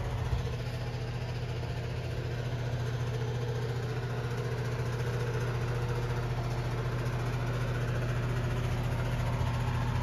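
A motor running with a steady low hum that holds evenly, growing slightly louder through the middle.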